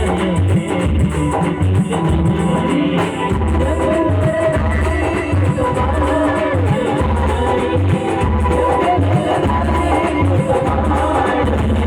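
Band music played loud: a regular drum beat with heavy bass under a melody line.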